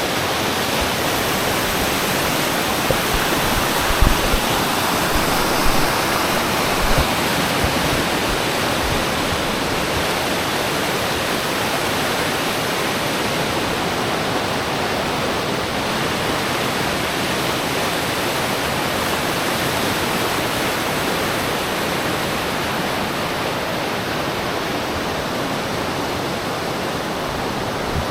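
Steady rushing of water, with a few soft low knocks in the first several seconds.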